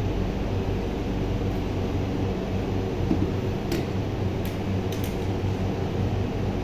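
Steady mechanical hum with a few faint clicks a little past halfway through.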